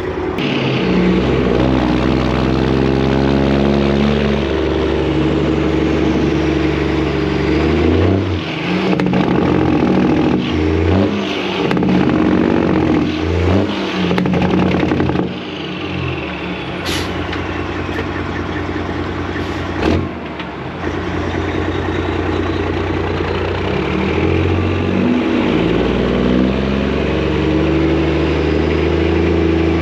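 Detroit diesel engine of a loaded Freightliner semi-truck pulling away, its pitch climbing in each gear and dropping back at several gear shifts.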